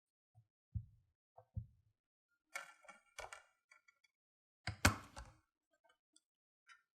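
Handling noises from a 4K Blu-ray steelbook case: two soft low thumps, then sharper clicks and knocks, the loudest about five seconds in, with a few small ticks near the end.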